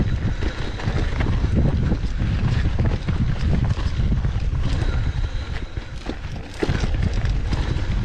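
Mountain bike riding over rough trail: the frame and parts rattle and knock in an irregular run over the bumps, under heavy wind buffeting on the microphone.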